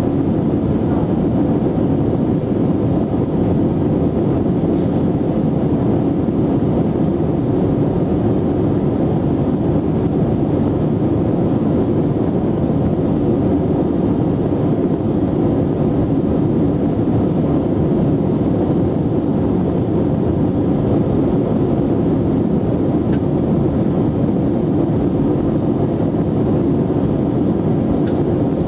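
Steady rumble of a jet airliner's engines and airflow, heard from inside the passenger cabin.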